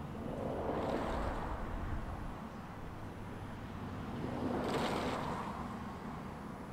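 Jet engine noise from an Airbus A320neo on its takeoff, heard as a steady roar that swells twice, the second time with a brief hiss.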